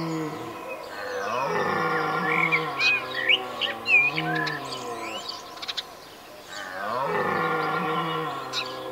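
Red deer stag roaring twice, each a long deep call that starts higher, drops in pitch and then wavers in a run of pulses: the stag's rutting roar. Small birds chirp between the two roars.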